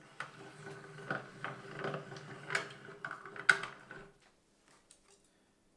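Hitex hand-crank leather splitting machine being cranked, its rollers feeding a strip of bridle leather past the blade to split it thinner. It runs steadily with scattered clicks, the loudest a sharp click about three and a half seconds in, and stops about four seconds in.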